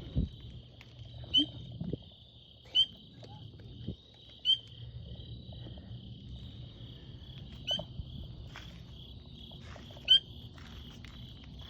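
Frog calling with five loud, short, high peeps spaced about one to three seconds apart, over a steady high-pitched chorus of insects or frogs.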